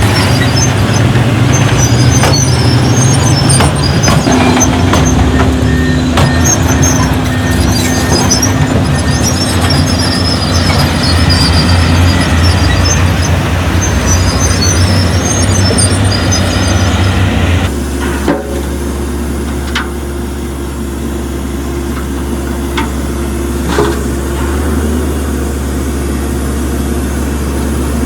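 Heavy construction machinery's diesel engines running loudly, with scattered high squeaks and clanks. About two-thirds of the way in the sound changes abruptly to a quieter, steady engine idle.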